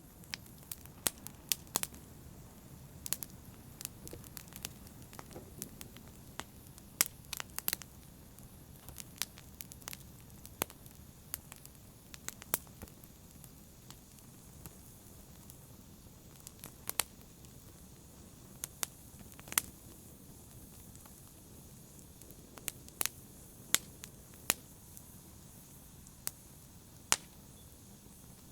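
Wood fire burning with irregular sharp crackles and pops over a low, steady rush of flame.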